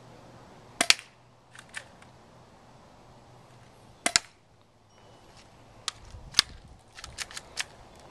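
Cheap spring airsoft BB gun firing: sharp double snaps about a second in and again around four seconds in, then another near six and a half seconds, with quieter clicks in between.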